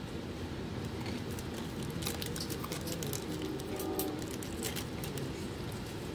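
Steady low rumble of an Amtrak Silver Meteor passenger car running along the track, heard from inside the car, with scattered light clicks and rattles.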